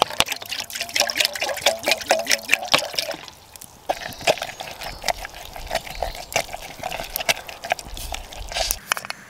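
Water poured from a plastic bottle into a metal pot, glugging and splashing for about three seconds. Then a spoon stirs and scrapes food in a metal pot, with light clicks.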